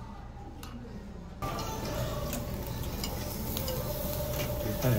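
Faint scraping of a spoon in a stone pot of rice. About a second and a half in, this gives way to a steady sizzle of Korean beef grilling over a charcoal tabletop grill.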